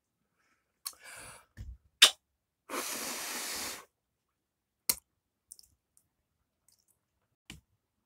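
A few scattered sharp clicks and knocks close to the microphone, with about a second of breathy hiss a little before halfway, the loudest click just before it.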